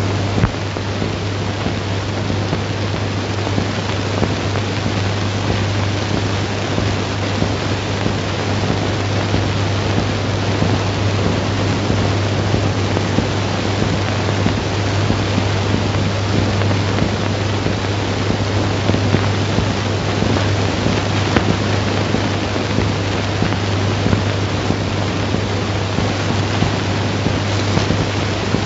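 Surface noise of a 1930s film soundtrack: a steady hiss and crackle over a constant low hum, with no speech or music.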